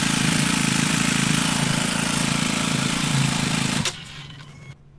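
2019 BMW G 310 GS's single-cylinder engine idling steadily with fresh oil, then the sound cuts off abruptly about four seconds in.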